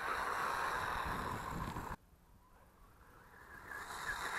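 Distant MJX Hyper Go electric RC car running across grass with a steady whirr. It cuts out abruptly about halfway through to dead silence, then fades back in near the end.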